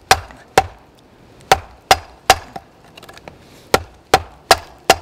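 An axe being batoned through a log section: a baton knocks sharply on the back of the axe head about ten times in uneven groups, each knock with a brief ring, driving the bit down to split the log lengthwise into a plank.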